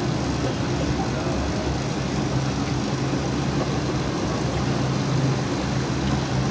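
Steady low mechanical hum over a constant hiss, unchanging throughout.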